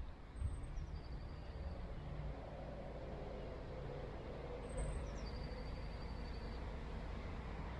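Steady rumble of distant road traffic, with two brief high thin tones, about a second in and again around five seconds in.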